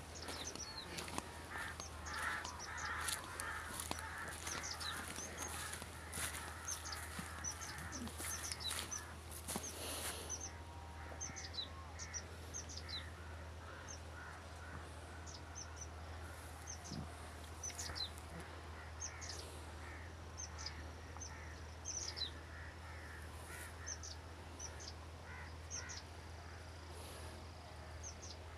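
Several birds calling in farmland: many short, high chirps and crow caws. Footsteps scuff on a dry dirt track for the first ten seconds or so, then stop.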